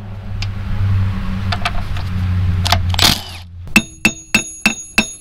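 A cordless power tool's motor runs steadily on a tractor transmission shaft for about three seconds, then stops. Then comes a regular series of sharp metallic clicks, about three a second, each with a high ringing tone.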